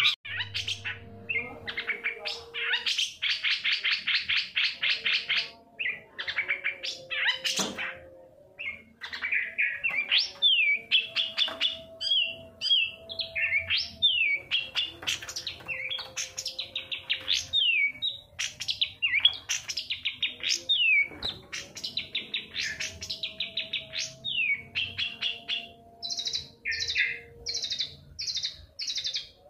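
Long-tailed shrike (cendet) singing a fast, varied song of rapid trills and quick falling whistled slurs, ending in a run of evenly repeated high notes.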